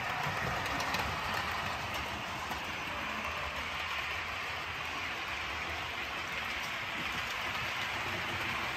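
OO gauge model InterCity passenger train running along the layout track: a steady hiss and rumble of the wheels on the rails, with faint clicks.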